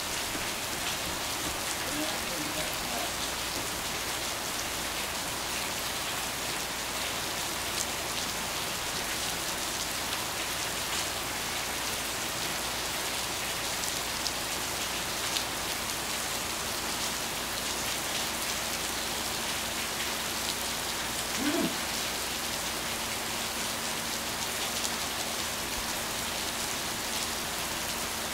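Steady rain falling, a dense even hiss with fine drop ticks. A brief pitched sound rises above it about three-quarters of the way in.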